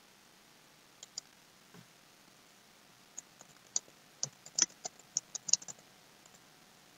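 Typing on a computer keyboard: a few scattered key clicks about a second in, then a quicker run of clicks that stops shortly before the end.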